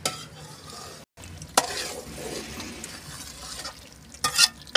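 Long metal spoon stirring a thick curry in a steel karahi, clinking and scraping against the pan near the start, about a second and a half in, and twice near the end, over the low sizzle of the cooking gravy.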